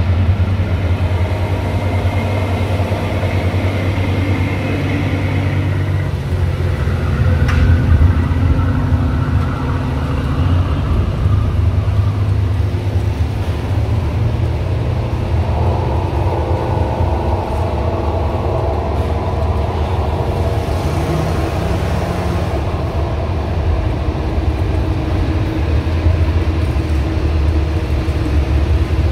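Steady low engine drone, with other engine sounds over it whose pitch slides up and down as they come and go.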